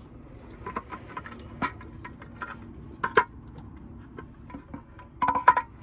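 Metal parts and hand tools being handled on an engine: scattered metallic clicks and clinks with a few sharper knocks, some briefly ringing, and a quick run of clinks about five seconds in that is the loudest.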